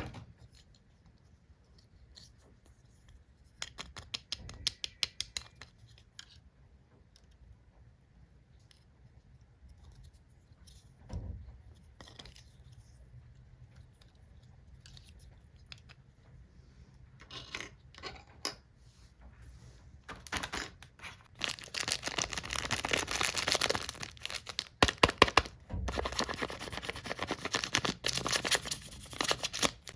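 Stationery packaging being opened by hand: short bursts of quick clicks and snips, then about ten seconds of steady plastic crinkling and tearing in the second half.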